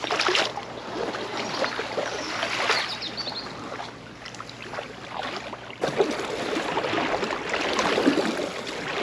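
Double-bladed paddle strokes splashing and dripping as an inflatable packraft is paddled through floodwater. About six seconds in, the sound changes to a steadier wash of water.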